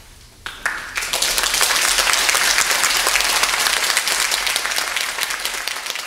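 Audience applauding: the clapping starts about half a second in, fills out within a second and then runs on steady and dense.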